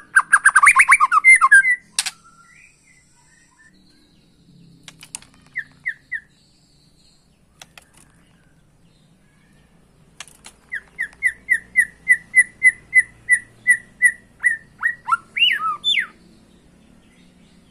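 White-rumped shama (murai batu) singing in bursts: a loud, rapid jumble of notes in the first two seconds, a few short notes a little later, then a run of repeated short whistled notes at about four a second, ending in a few rising and falling glides.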